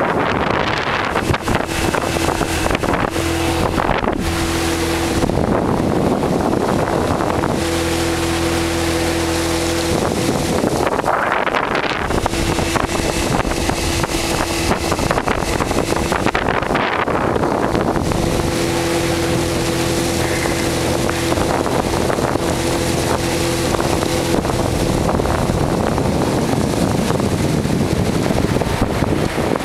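A 1989 Pro Craft pontoon boat's outboard motor running steadily under way, with wind buffeting the microphone and water rushing past.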